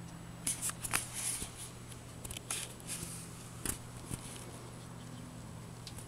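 A run of short rustles and light clicks over a steady low hum, the sharpest click a little before four seconds in.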